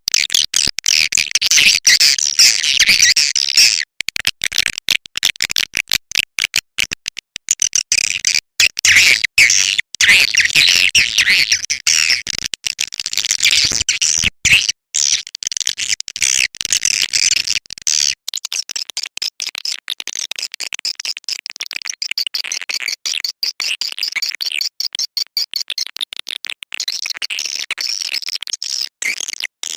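Swiftlet call recording: dense, rapid twittering and chattering of many swiftlets, the lure sound that swiftlet farmers play to draw swiftlets into a nesting house. About eighteen seconds in, a faint low background drops away and the twittering goes on.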